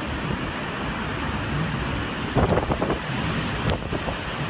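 Hurricane-force wind and driving rain blowing steadily, the gusts buffeting the microphone. About two and a half seconds in comes a short cluster of louder thumps and rattles, and a single sharp click follows about a second later.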